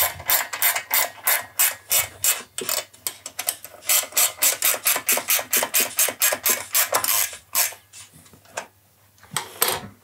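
Ratchet wrench clicking quickly and evenly, about five clicks a second, as the nut is run onto a motorcycle's front axle; the clicking stops about eight seconds in, with one more click near the end.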